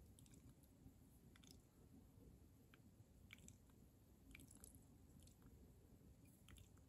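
Near silence: faint room tone with a dozen or so faint, scattered ticks and small crackles from fingers handling the thread and hackle feather on the fly in the vise.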